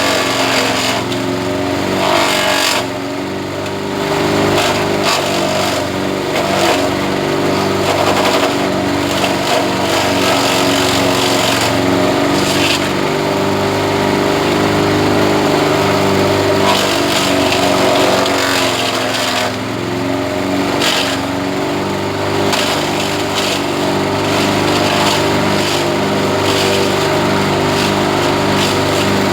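Engine-driven grass chopper running steadily, with short crackles over the engine note. The engine note dips twice, about three seconds in and again about two-thirds of the way through, then picks back up.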